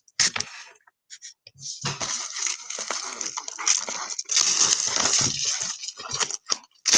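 Packaging on a sealed trading-card hobby box being handled and torn open: a few sharp clicks, then a long run of crinkling and tearing rustle.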